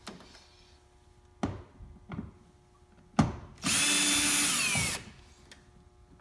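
Drill with an 8mm socket running for about a second on a screw of the plastic cabin filter housing. Before it come a few sharp clicks and knocks of the tool and the parts being handled.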